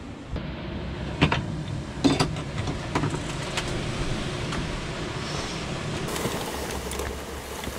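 Hand-cranked lift bed in a camper van being wound down: several sharp knocks in the first few seconds, then a steady mechanical rattle as the crank handle turns.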